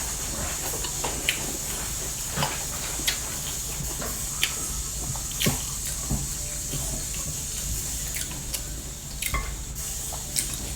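Eating sounds: scattered soft smacks and clicks of chewing a meal of rice, dal and curry, every second or so, over a steady hiss.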